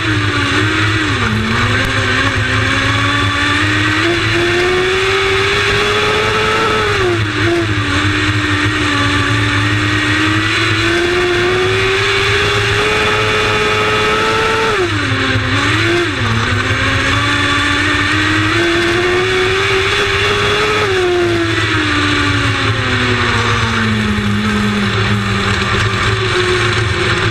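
Lightning Sprint race car engine running hard around a short oval: the pitch climbs steadily down each straight, then drops sharply as the driver lifts for the turns, about every seven seconds. Near the end the engine slows down in a long falling pitch.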